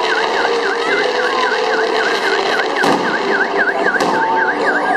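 Electronic car alarm warbling, a tone that dips and rises about four times a second without a break, with a couple of sharp firework cracks around three and four seconds in.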